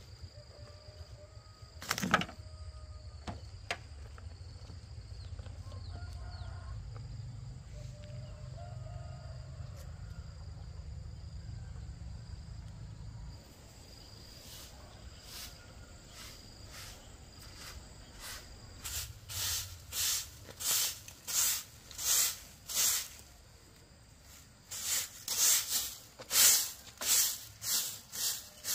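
Repeated scraping strokes of a hand tool at work, about twice a second, starting roughly two-thirds of the way in and pausing briefly before resuming. A single knock about two seconds in.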